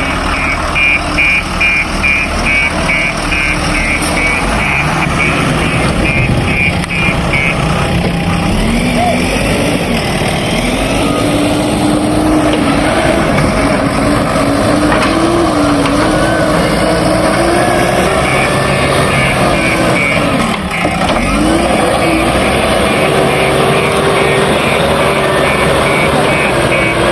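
Diesel engines of a backhoe loader and dumper truck running, engine pitch rising and falling as they work. A reversing alarm beeps rapidly over the first few seconds and starts again near the end.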